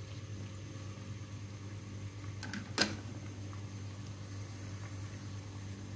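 Sliced onions frying gently in mustard oil, a soft steady sizzle over a low steady hum. One sharp clack of a utensil about three seconds in.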